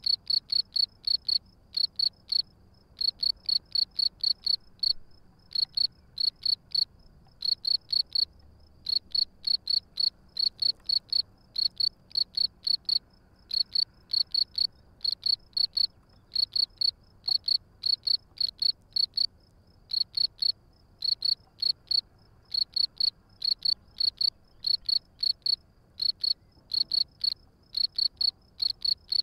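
European field crickets (Gryllus campestris) chirping: loud, high, evenly spaced chirps, about five or six a second, in runs broken by short pauses.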